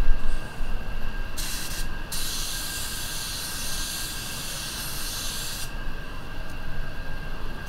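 Anest Iwata WS400 Supernova 1.3 spray gun spraying paint with a high air hiss: a short burst about a second and a half in, then a longer pass of about three and a half seconds that stops sharply. A steady booth ventilation hum runs underneath.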